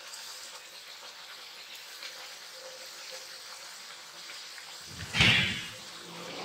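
Hot oil sizzling steadily as a puri deep-fries in a kadhai, with one brief loud thump about five seconds in.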